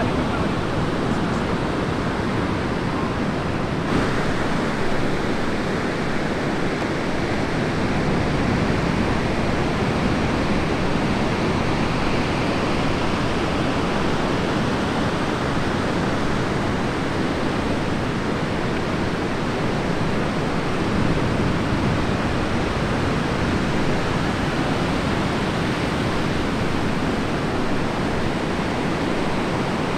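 Heavy surf from a large hurricane swell breaking and washing in, a continuous, steady rush of noise.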